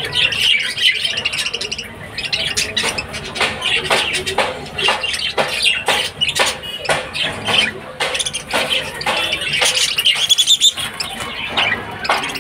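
Budgerigars chattering and chirping: a rapid run of short, sharp chirps and squawks, with warbling chatter at the start and again about ten seconds in.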